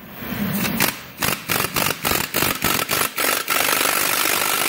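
Impact wrench driving the screw of a C-frame press to push a lower control arm bushing out of its bore: short bursts about four a second, then about three and a half seconds in a steady unbroken run with a high whine.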